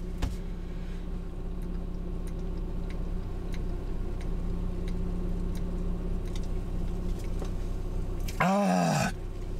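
A steady low hum with faint scattered ticks. About eight and a half seconds in comes a short loud groan in a man's voice.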